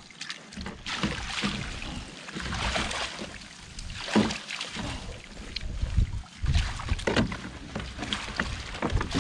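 Water splashing and dripping as a wet fine-mesh fish-trap net is hauled up and handled by hand, with irregular knocks and rustles from the net and its frame.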